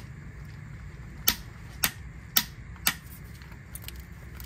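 Click-type torque wrench clicking four times, about half a second apart, on a manual gearbox fill plug: each click is the wrench breaking over at its 45 N·m setting, the sign that the plug is at torque.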